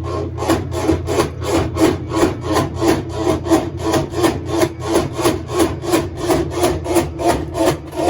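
Kenmore 90 series top-load washer in its spin cycle, making a loud rhythmic grinding rasp about three times a second over the steady hum of the motor, cutting off suddenly at the end. The noise comes from a damaged transmission, diagnosed as wear on the transmission shaft.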